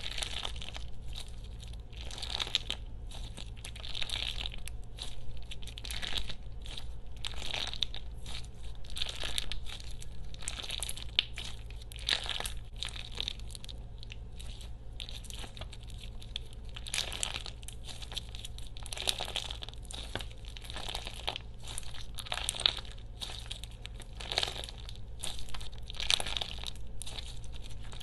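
Slime being squeezed and worked by hand, making dense, irregular crackling and popping sounds.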